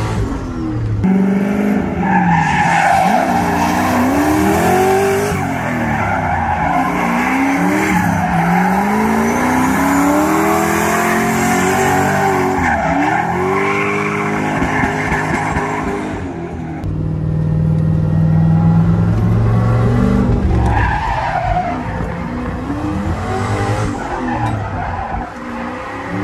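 Turbocharged Chevy Silverado pickup's engine revving up and falling back again and again while its tyres squeal and skid through drifts. The engine note holds steady for a few seconds past the middle before the revving resumes.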